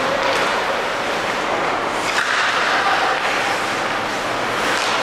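Steady, loud din of a hockey arena during play: a continuous wash of crowd noise with no single sound standing out.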